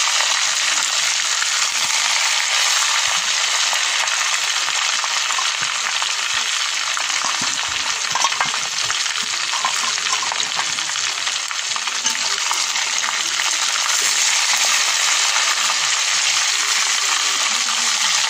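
A whole chicken deep-frying in hot oil in a wok: a steady, loud sizzle with a few pops, as a spatula turns the bird in the pan.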